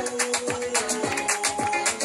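Upbeat flamenco-style dance music with a quick, steady beat of about four strokes a second under a held melody line.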